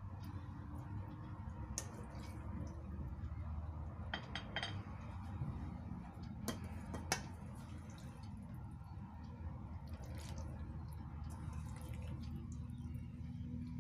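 Kitchen background: a low steady hum with a scattering of light clicks and clinks of dishes and utensils, the sharpest about seven seconds in.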